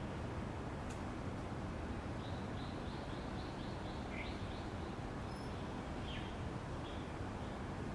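Steady low outdoor background hum. About two seconds in, a quick run of short high chirps comes at about five a second, followed by two single down-slurred chirps.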